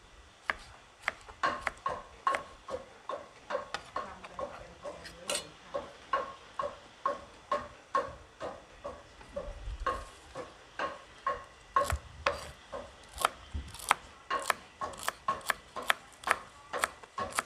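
Kitchen knife chopping vegetables on a wooden cutting board: a steady run of sharp knocks, about two to three a second, each with a short wooden ring.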